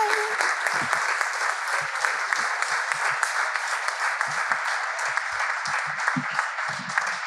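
Small audience applauding steadily, a dense patter of many hands clapping.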